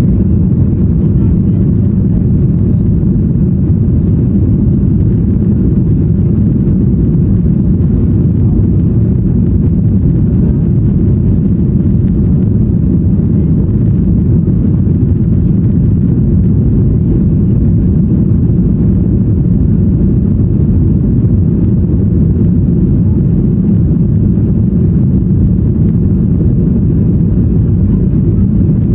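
Boeing 737-800 cabin noise heard from a window seat: the steady low roar of the CFM56 turbofan engines and the airflow during the climb after takeoff, unchanging throughout.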